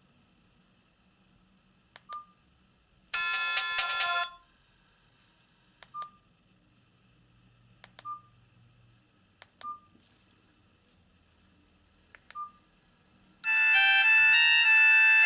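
Philips E106 button phone stepping through its ringtones. Several keypad presses, each a click with a short beep, and a brief burst of a ringtone about three seconds in. Near the end a loud ringtone melody starts playing from the phone's speaker.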